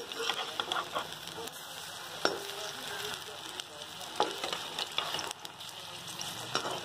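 Banana-and-semolina fritters sizzling as they deep-fry in hot oil in an iron kadai, with a perforated metal skimmer clinking against the pan, sharpest twice, about two and four seconds in.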